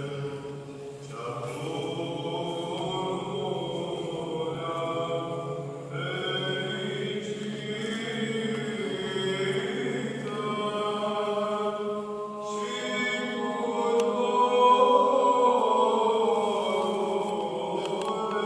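Orthodox liturgical chant sung at a church service, long held notes in phrases that break briefly about a second in, at about six seconds and at about twelve seconds, loudest a little after the last break.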